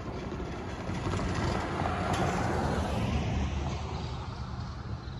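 An SUV driving past close by, its tyre and engine noise swelling to a peak about two seconds in and then fading away.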